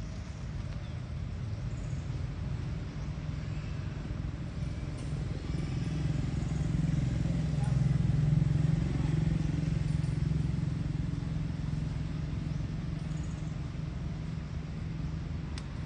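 Low rumble of a vehicle, growing louder towards the middle and then easing off again.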